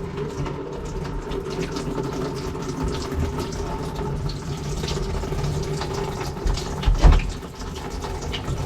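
Water running steadily in a sink drain, with a low steady hum beneath it and a single knock about seven seconds in.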